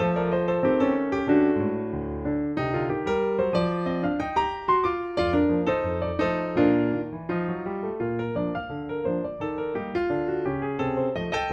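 Background piano music: a flowing melody of quick notes over held bass notes.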